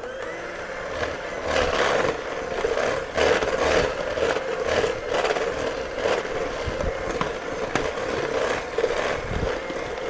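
Five-speed electric hand mixer running at a higher speed in thick cake batter, its motor humming steadily. The beaters scrape and rattle against the stainless steel bowl over and over.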